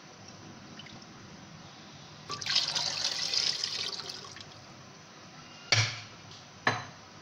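Thin yogurt and gram-flour batter poured in a stream into a metal pot of curry base for about two seconds, followed by two sharp knocks of a wooden spatula against the pot.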